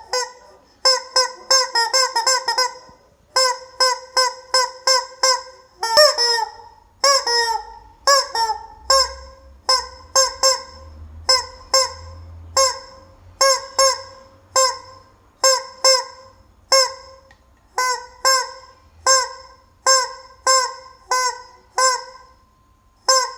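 Rubber chicken toy squeezed over and over, giving short honking squawks. They come in quick runs for the first few seconds, then settle to about one squawk a second.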